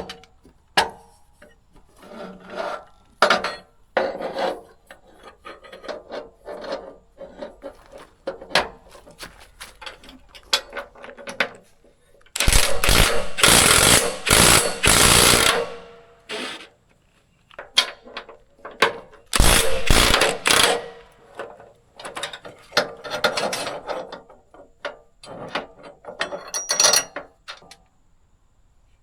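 Hand-work noises of tools and metal parts: scattered clicks, clanks and rattles. Two loud rasping spells break in, one about three seconds long roughly midway and a shorter one about a second long soon after.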